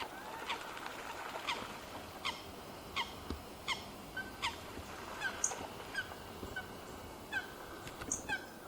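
Waterbirds calling: a run of short, falling calls repeated at a fairly even pace over a faint steady background.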